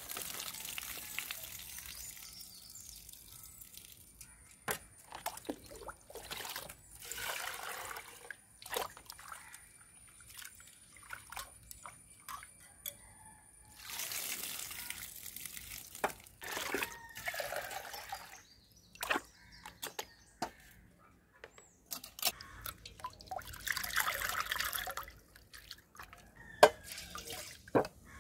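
Rice being washed in a steel pot: the rinse water is poured off in splashes onto the ground several times. Short clinks and taps of the steel vessel come between the pours.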